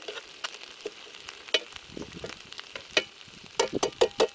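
Garlic prawns, bacon and rice sizzling in a cast iron frying pan. Metal tongs click against the pan as the food is turned, once about a second and a half in and in a quick run near the end.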